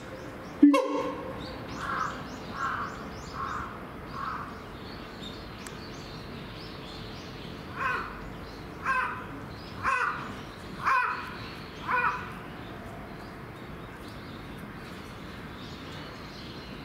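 Siamang calling: one loud, low call with a swooping pitch about half a second in, then a run of four short hoots between about two and four seconds, and five louder, harsher calls about a second apart from eight to twelve seconds. The calling of a siamang pair, which seems to claim their territory.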